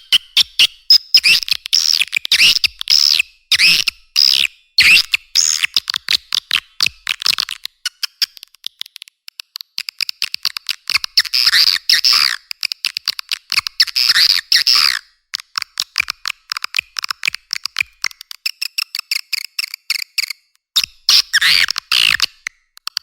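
Swiftlet call recording, the kind played to lure swiftlets into a nesting house: fast trains of dry clicks with bouts of shrill twittering chirps, the chirping falling away for a few seconds in the middle and returning near the end.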